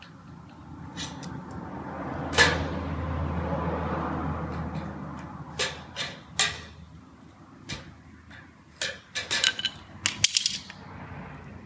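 Sharp clicks and taps of a metal square and hand tools against a steel box gutter and the concrete floor, ending in a quick clatter as tools are picked up. A low rumble swells and fades over the first few seconds.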